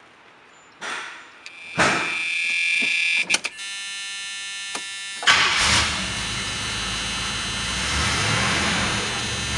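A thud, then a warning buzzer sounds steadily for about three seconds; about five seconds in, the 1979 Pontiac Trans Am's V8 cranks, fires and settles into steady running on a cold start.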